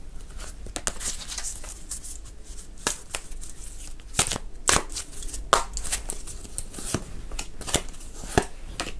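A deck of oracle cards being shuffled and handled by hand: irregular papery flicks and sharp taps of the cards, scattered unevenly.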